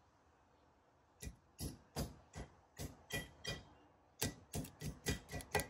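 Light metal-on-metal taps and clicks at the wheel-bearing snap ring of a steering knuckle, which the ring is being worked into its groove. About a dozen sharp clicks with a short metallic ring start about a second in, roughly three a second, and come quicker near the end.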